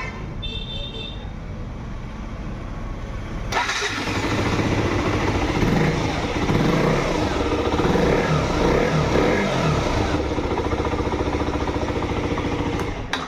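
KTM RC 125's single-cylinder four-stroke engine running after its rebuild; about three and a half seconds in it gets louder, with the revs rising and falling in the middle.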